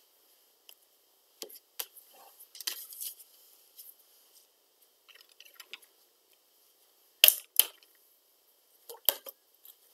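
Scattered light clicks and taps of small hard objects being handled, with two sharp clicks a moment apart about seven seconds in and another about nine seconds in.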